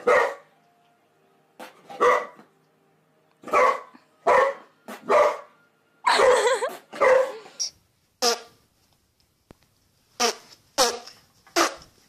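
Boxer dog barking in about ten short, separate barks, with a longer wavering bark-growl a little past the middle.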